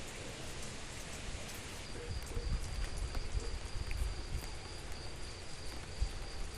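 Steady rain falling, with scattered drip clicks and low rumbling in the bass. About two seconds in, a thin steady high-pitched tone joins and holds.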